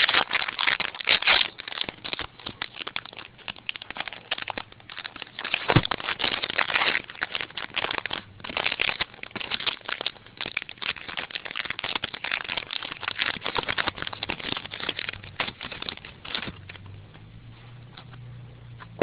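Close crinkling and rustling of a trading-card pack wrapper and its cards being handled, an irregular stream of crackles that dies down near the end.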